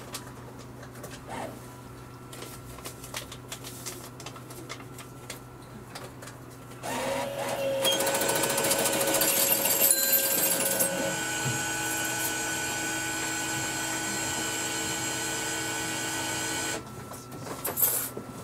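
Iyotetsu Moha 50 tram standing still with a low steady hum. About seven seconds in, its air compressor starts and runs for about ten seconds with a loud steady drone and a fast rattle, then cuts off abruptly.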